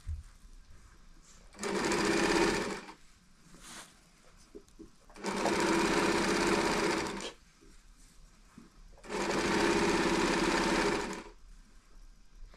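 Portable electric sewing machine stitching in three separate runs of about one and a half to two seconds each, with short pauses between them.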